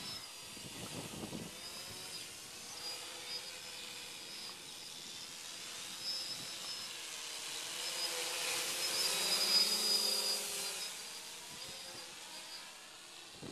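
Quadcopter's four electric motors and propellers buzzing in flight, a whine with wandering pitch over a rushing hiss, swelling louder about eight seconds in and easing off again near eleven seconds.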